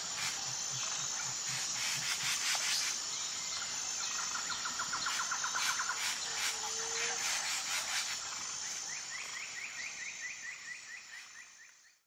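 Rainforest ambience: bird calls over a steady high-pitched insect drone. A fast trill comes about four to six seconds in, and a run of quick, repeated rising chirps comes near the end before the sound fades out.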